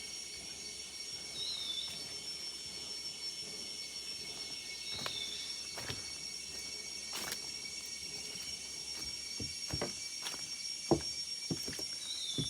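Steady rainforest insect chorus, several high tones held throughout. A short falling bird call comes three times, about a second in, about five seconds in and near the end, and footsteps knock more often in the second half.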